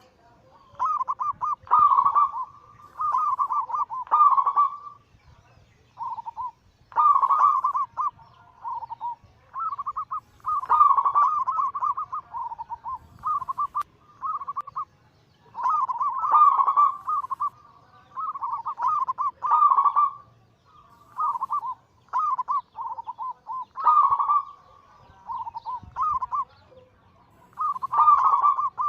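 Zebra doves (perkutut) cooing: repeated rippling phrases of quick notes, each a second or two long, separated by short pauses.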